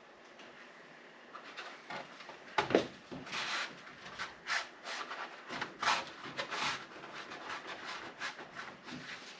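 Hands pressing and rubbing a window louver onto a van's rear door window to seat its adhesive: scattered scuffs and rubs, with one sharper knock a little under three seconds in.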